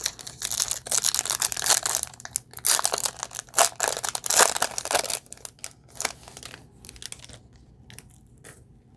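Crinkling and rustling as trading cards and their wrapper are handled, dense for about five seconds, then thinning to a few scattered light clicks.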